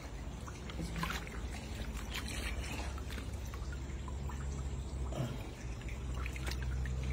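Shallow water splashing and trickling as a hand reaches into it and a prawn is lifted out dripping, with scattered small sharp splashes over a steady low rumble.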